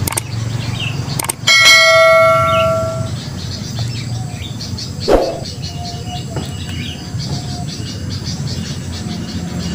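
A click followed by a bright bell chime that rings and fades over about a second and a half: the notification-bell sound effect of a subscribe-button animation. A single sharp knock comes a few seconds later over a steady low background noise.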